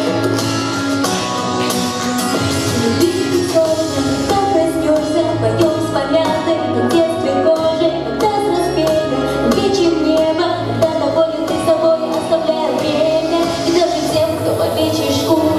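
A song playing: a melody that wavers in pitch, carried by singing, over steady percussion and accompaniment.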